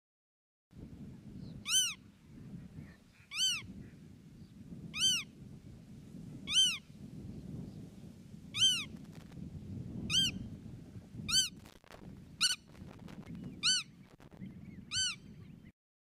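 An animal's short call that rises and falls in pitch, repeated about ten times at intervals of roughly a second and a half, over a low rumble.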